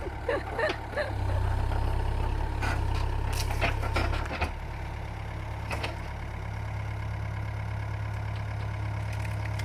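Engine of a heavy earth-moving machine running steadily while it works at pulling stumps, with scattered clanks and knocks; the engine note rises a little about a second in and eases off for a while around the middle.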